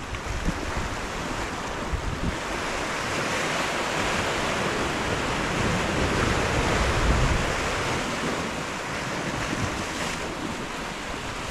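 Sea surf breaking and washing against rocks, with wind buffeting the microphone. The surge builds a couple of seconds in, is loudest about halfway, and eases off near the end.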